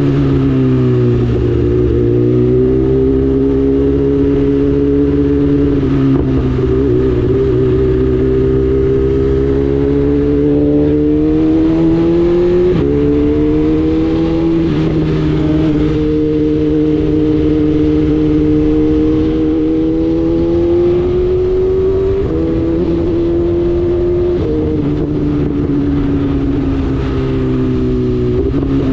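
BMW S1000RR inline-four engine running through an Akrapovic full exhaust, loud and continuous. Its pitch drifts slowly up and down, with a few sudden steps in pitch along the way.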